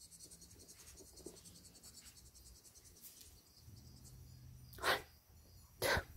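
A boxer dog snorting: two short, sharp huffs of breath about a second apart, near the end, after a few quiet seconds.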